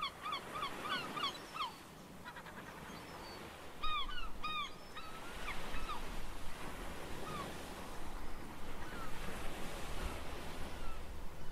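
Fur seal colony: a quick run of short, pitched, honking calls, about four a second, ending about two seconds in, then two louder calls about four seconds in and scattered fainter calls over a steady background hiss.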